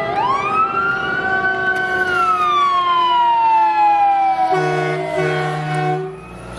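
Fire truck siren winding up quickly, holding, then sliding slowly down in pitch. Near the end, about three short air-horn blasts sound over the fading wail.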